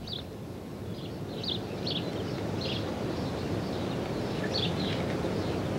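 Outdoor garden ambience: a steady low background noise with faint, scattered high bird chirps.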